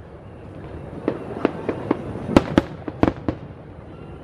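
Aerial fireworks shells bursting: an irregular string of sharp bangs over a continuous rumble, the loudest of them about halfway through.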